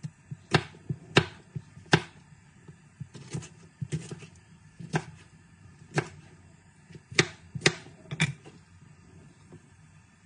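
Kitchen knife chopping tomato on a plastic cutting board: a dozen or so sharp, irregular knocks as the blade strikes the board.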